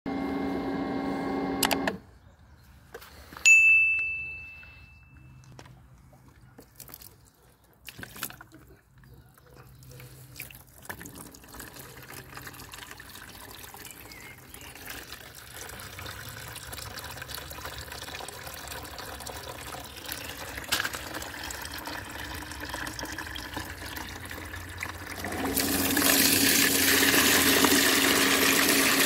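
Bestway Flowclear sand filter pump running with a steady hum, which cuts off about 2 s in. A sharp click and a short ringing ding follow, then handling clicks and water starting to trickle through the hose. Near the end the pump starts again and backwash water gushes loudly from the waste hose into a plastic basin.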